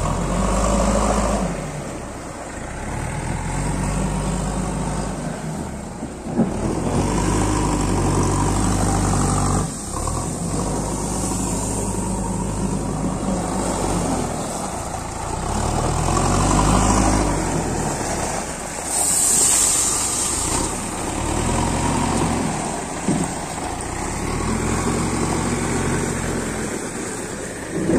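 Diesel engine of a JCB backhoe loader working while loading, revving up and down again and again, with a tractor's diesel engine running alongside.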